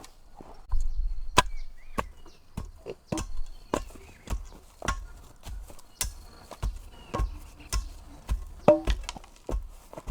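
Steady, rhythmic chopping into wood, a little under two strokes a second, each a sharp knock.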